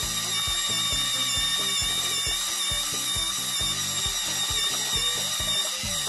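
Small battery-powered electric pencil sharpener running with a wooden pencil pushed into it: a steady motor whine as the blade grinds the pencil tip.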